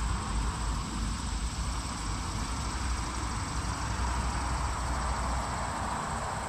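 Steady outdoor background noise: a low rumble and an even rushing hiss, with a constant high-pitched insect drone above it.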